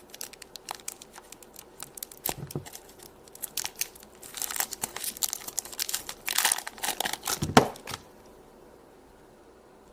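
Packaging crinkling and tearing as the white modelling clay is unwrapped and handled, in a series of short rustles and clicks that stop about eight seconds in.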